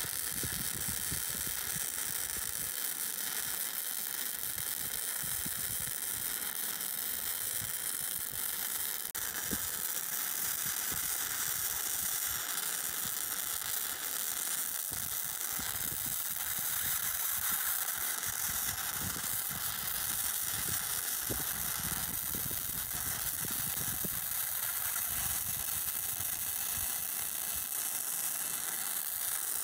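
Wire-feed welding arc running a bead along a steel seam of a shipping-container roof: a steady crackling sizzle, with a brief break about nine seconds in.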